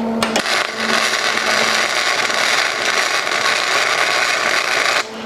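Longevity Migweld 140 MIG welder running flux-core wire, its arc crackling steadily for about four and a half seconds. The arc strikes just after the start and cuts off abruptly near the end.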